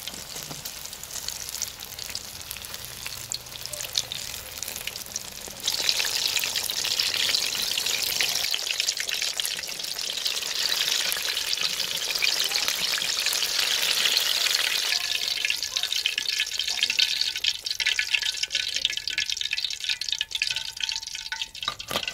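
Battered chicken pakoras deep-frying in very hot oil, a steady sizzling crackle that gets suddenly louder about six seconds in and thins out again in the last several seconds.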